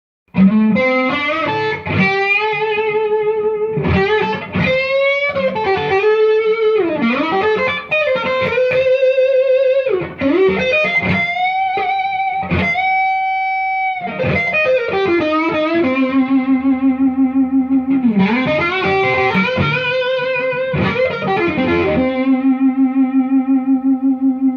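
2016 Gibson Les Paul R8 (1958 reissue) electric guitar played through a Joyo Vintage Overdrive pedal into a Friedman Dirty Shirley Mini amp and a 1x12 cab with a Celestion Creamback. It plays a lead line of single notes with string bends and vibrato, with a held note about halfway through, and ends on a long low note with wide vibrato.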